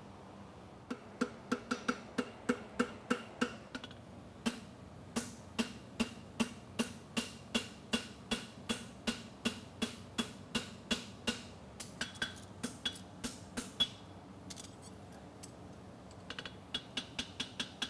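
Farrier's hammer striking a red-hot steel horseshoe on an anvil, forging it: a steady run of ringing blows, about two to three a second. The blows stop for about two seconds near the end, then start again in a quicker series.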